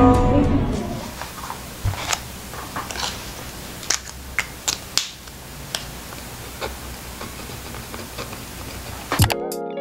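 Light, irregular clicks and taps from a pen and a metal-clipped clipboard being handled, the pen setting down to write on a paper planner, over faint room hiss. Background music fades out about a second in and comes back near the end.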